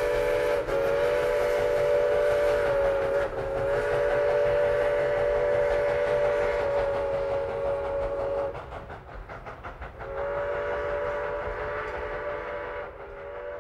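Train whistle sounding a chord of several notes in long held blasts. It stops about eight seconds in and sounds again a couple of seconds later, over a low steady running rumble.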